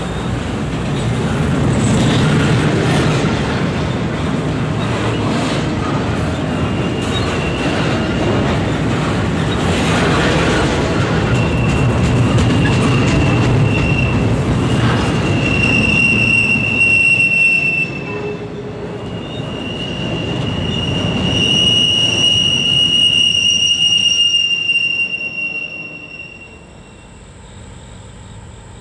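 Double-stack intermodal freight train's well cars rolling past at trackside, the wheels rumbling and clattering on the rails. A high, steady wheel squeal sets in about a quarter of the way through and runs on until the train's sound fades near the end.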